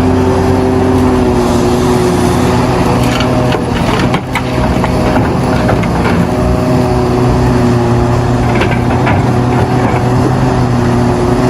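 Hitachi Zaxis 670LC mining excavator's diesel engine running steadily under working load, with a few clatters from the digging.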